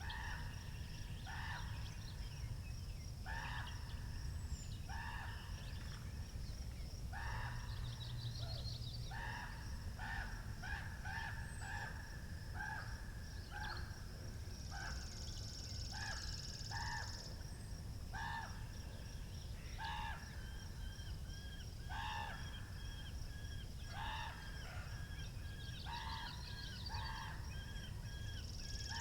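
Birds calling: a short call repeated every second or two, over a steady low rumble of wind, with a thin, high continuous note throughout.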